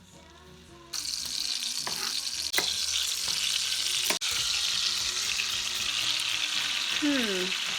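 Beef rouladen sizzling in hot fat in a pan as they are seared, the hiss starting suddenly about a second in when the meat goes in, with a few light clicks of utensils against the pan.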